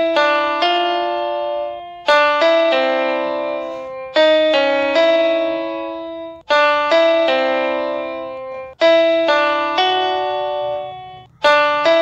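Background music: a piano-like keyboard playing a melody of struck notes that ring and fade, in short phrases that start again about every two seconds.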